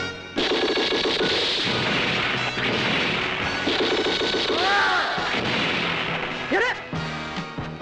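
Explosion sound effects for a giant monster's arm cannon firing and shells blasting rocky ground: a sudden loud blast a fraction of a second in, then a rumbling, crackling noise for about six seconds, with short curved whistling tones near five and six and a half seconds. Background music comes back near the end.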